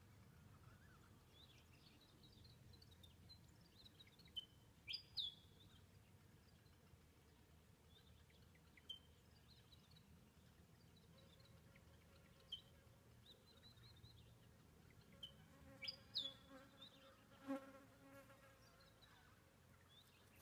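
Faint outdoor quiet broken by short, high bird chirps scattered through it, a few louder ones about a quarter of the way in and again past the three-quarter mark. A faint insect buzz, a fly's, comes in for a few seconds after the middle.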